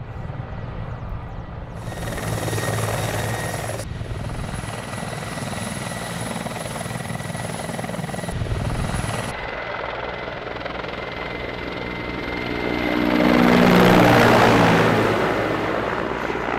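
Mi-24 Hind helicopters running, rotor noise with a steady high turbine whine, changing abruptly from clip to clip. About 13 seconds in one passes close, growing loudest and dropping in pitch as it goes by.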